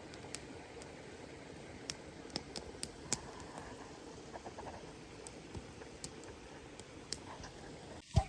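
Wood campfire crackling: irregular sharp pops and snaps over a steady low hiss, with one louder pop near the end.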